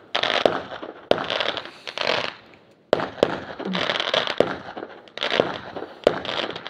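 Aerial fireworks bursting in a series of sharp bangs, roughly one a second with a short lull about two and a half seconds in. Each bang is followed by the crackling fizz of the glittering stars.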